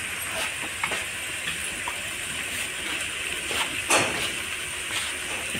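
Mutton frying in a wok with a steady sizzle. A few sharp clicks and taps come from a spoon and the spice box as turmeric is added, the loudest about four seconds in.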